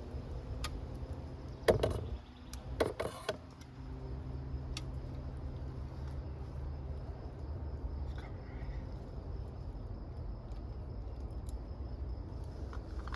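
Handling noise as gear is settled into position: a short burst of rustling and knocks about two seconds in and another about three seconds in, over a steady low background rumble.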